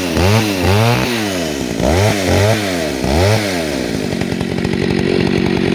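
An old Stihl two-stroke chainsaw having its throttle blipped in quick repeated revs, two or three a second. About four seconds in it settles to a steady idle.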